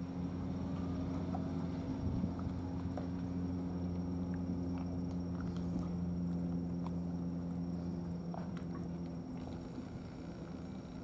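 Two cats chewing wet food from plastic dishes, heard as small scattered clicks. Under them a steady low engine hum runs throughout.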